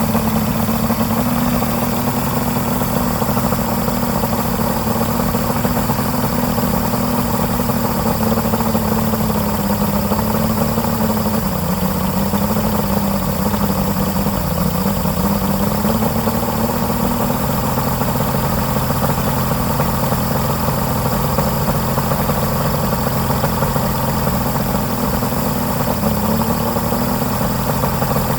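Johnson 225 Ocean Runner two-stroke V6 outboard motor idling steadily, its pitch wandering slightly up and down.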